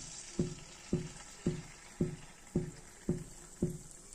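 Carrot malpua batter frying in hot ghee in an iron kadai, a steady soft sizzle. Over it runs a regular soft knock with a low ring, about twice a second.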